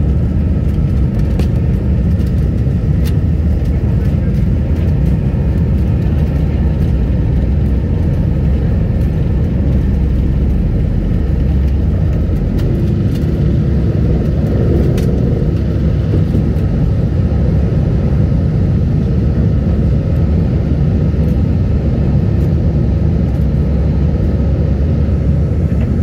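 Jet airliner cabin noise over the wing during takeoff: the engines at takeoff thrust make a loud, steady rumble that carries on unbroken as the plane leaves the runway and climbs.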